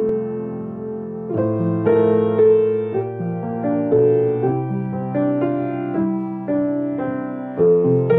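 Slow piano music: sustained chords struck about once or twice a second, each dying away before the next.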